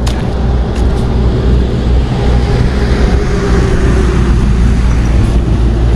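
Steady low rumble of wind buffeting the microphone, with a couple of faint clicks near the start.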